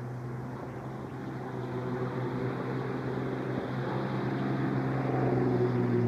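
A motor running with a steady low hum, growing gradually louder.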